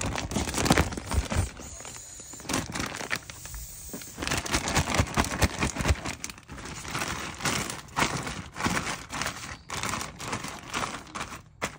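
Irregular crinkling and rustling, as of something being crumpled and handled.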